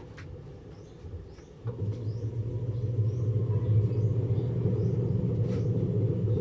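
Washing machine motor, freshly replaced, switching on about a second and a half in and running with a loud, steady low hum.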